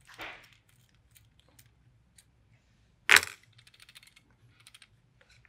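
One sharp metallic clack about three seconds in as a hex screwdriver is set down on the hard tabletop, followed by about a second of light metallic ticking and rattling. A softer rustle of handling comes just before.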